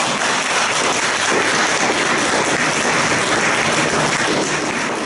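Audience applause, dense and steady, beginning to die down near the end.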